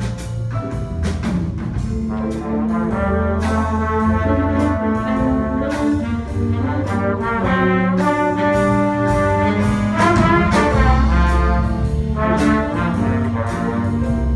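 Live band music with trumpets and trombones playing sustained notes over a steady drum beat.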